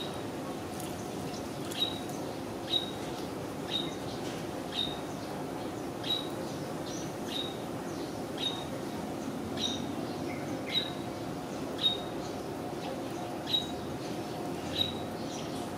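A short, high chirp repeated about once a second, typical of a small bird, over a steady low background murmur.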